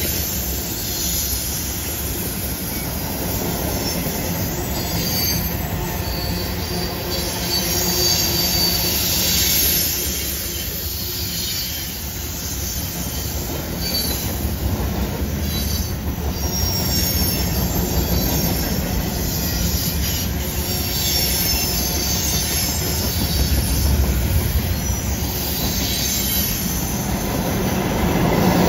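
Freight cars of a long mixed freight train rolling past on a curve: a steady rumble and clatter of steel wheels on rail, with high wheel squeal that comes and goes.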